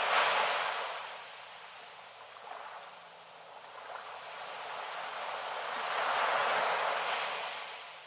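Small waves washing up a sandy beach and drawing back. One wash of surf is at its loudest right at the start and fades within about a second and a half. A second one builds to a peak about six and a half seconds in, then dies away.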